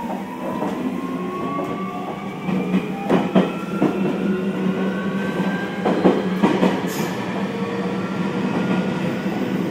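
Keio 1000 series electric train's Toyo IGBT-VVVF inverter and traction motors whining, heard from inside the car, the tones rising slowly in pitch as the train accelerates under power. Over the running noise the wheels click across rail joints in pairs, around three and six seconds in.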